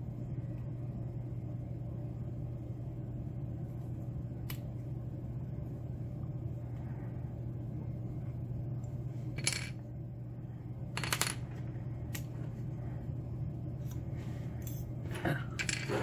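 Small metallic clicks and clinks of a brass Abus padlock core and its parts (plug, shim, pins) being handled and fitted back together. The clicks come singly and scattered, then several close together near the end, over a steady low hum.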